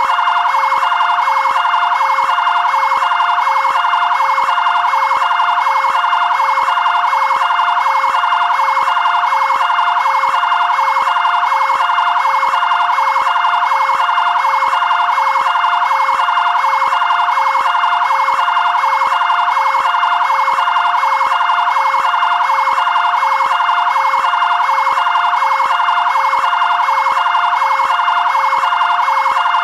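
Fire brigade area-command vehicle's electronic siren sounding loudly and continuously, its tones repeating in a fast, even pattern.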